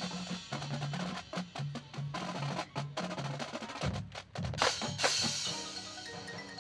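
Drum and bugle corps percussion section playing: rapid snare and tenor drum strokes over tuned bass drums alternating low pitched notes, with a loud accent about four and a half seconds in. Near the end it thins out to lighter mallet notes.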